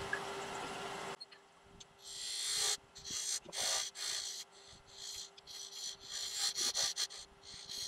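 A woodturning tool cutting into the end grain of a spinning walnut lid on a wood lathe, hollowing a recess in a series of short scraping cuts, each under a second, that begin about two seconds in. The lathe's steady hum runs underneath.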